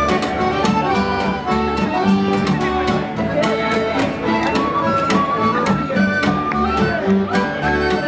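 Acoustic folk band playing an instrumental passage: plucked upright bass and strummed acoustic guitar under a held lead melody, with no singing.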